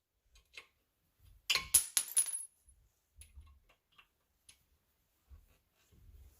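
Small metal parts clinking: a cluster of sharp metallic clinks with a brief high ring about a second and a half in, then a few faint ticks.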